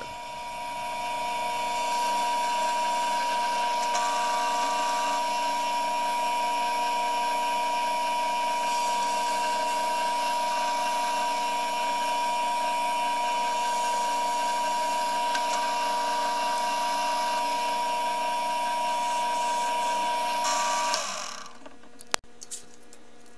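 Drill press running steadily with a constant high whine while pilot holes for the binding screws are drilled into a wooden ski. The motor winds down and stops about 21 seconds in, followed by a few sharp clicks.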